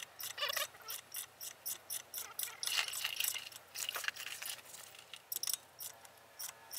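Hand socket ratchet clicking in quick runs of sharp metallic clicks as a socket is worked on a suspension nut.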